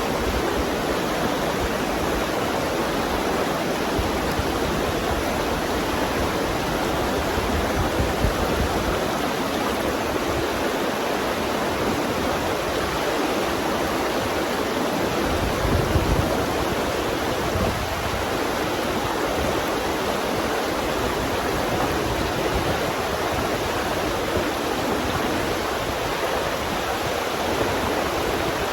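Fast river water rushing steadily over rocks, with a couple of brief low rumbles of wind or handling on the microphone.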